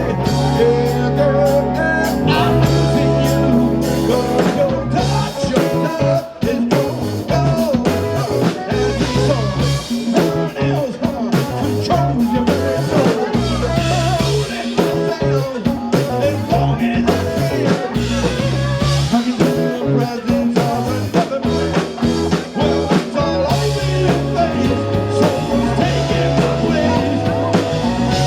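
A live rock band playing: electric guitar leads over bass and drums, with dense drum hits throughout.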